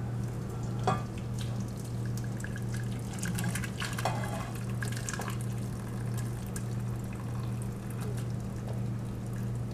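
Creamy alfredo sauce being poured and scraped from a stainless steel frying pan into a pot, with scattered small clicks of a utensil against the pan, over a steady low hum.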